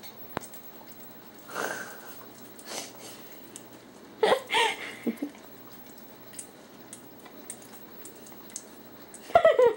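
A dog licking peanut butter off a tile floor: soft, wet licking and smacking in short spells. Brief pitched vocal sounds come twice, about halfway through and, loudest, near the end.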